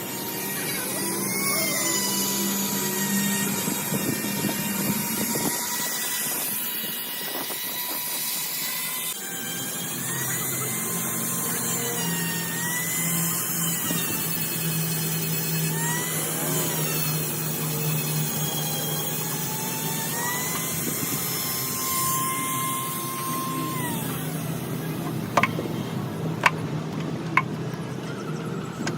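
A power tool running with a whine whose pitch wavers up and down as it is loaded, over a steady low hum, with three sharp metal clanks near the end.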